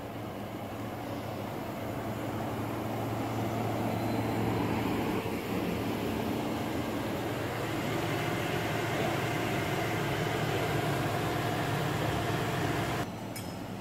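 Steady low hum of a powered-up fiber laser cutting machine's equipment and water chiller, idling rather than cutting. The sound changes abruptly near the end.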